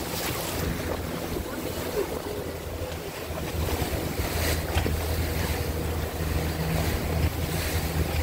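A motor launch's engine running steadily under way, its low hum getting a little louder about halfway through, with wind buffeting the microphone and the rush of water past the hull.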